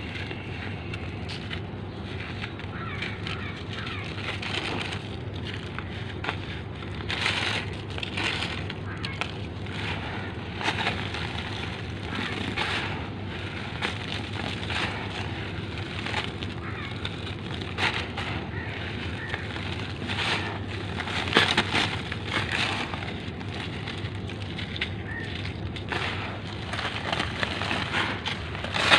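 Hands crumbling dry lumps of reused cement and letting the powder pour onto a plastic sheet: gritty, crunchy crackling that comes and goes irregularly, louder about a third of the way in and again about three-quarters through.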